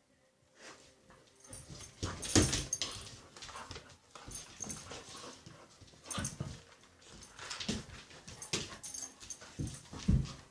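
Border collies play-fighting, with whimpers and other dog noises over irregular scuffling. It starts after a brief hush and comes in uneven bursts.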